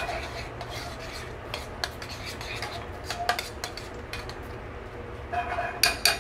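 A spoon stirring risotto in a metal pot, scraping and clinking against the pot as Parmesan is worked in, with a quick run of louder clinks near the end.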